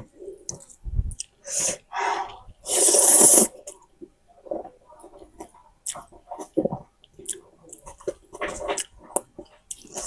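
Close-up eating of spicy instant noodles: a few loud slurps in the first half, the longest almost a second long about three seconds in, then chewing with many small wet clicks and smacks.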